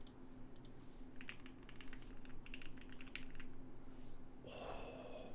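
Keys being typed on a Cannon Keys Bakeneko60 mechanical keyboard with lubed and filmed Lavender switches and PBT keycaps: scattered, uneven key clicks over the first few seconds. A short scraping noise follows near the end.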